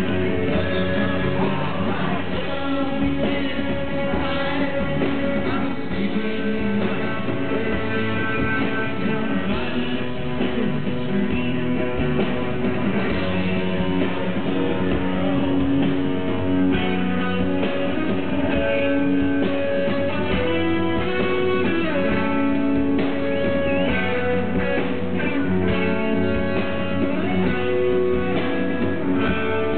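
Live rock band playing loud electric guitars, recorded from the crowd.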